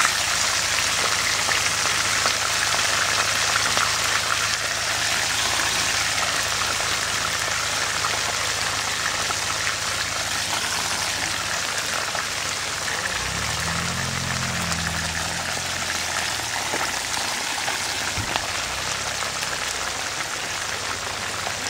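Small river fish deep-frying in hot oil: a steady, dense crackling sizzle that slowly quietens as the fish turns crisp.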